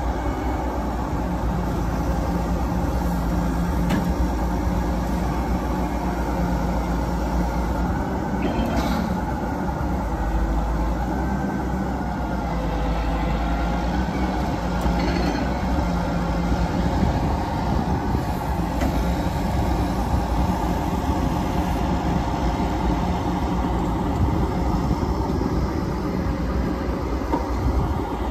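Diesel engines of heavy tow trucks running steadily, with a few brief clinks.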